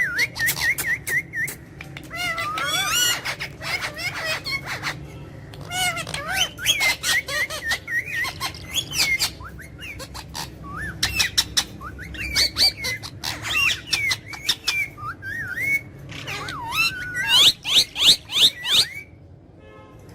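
Pet parrot calling with many short rising and falling whistles and squawks, mixed with rapid sharp clicks. The calls stop shortly before the end.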